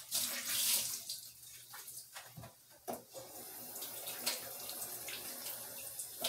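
Water running from a tap into a sink, loudest in the first second, with a couple of short knocks about two and a half and three seconds in.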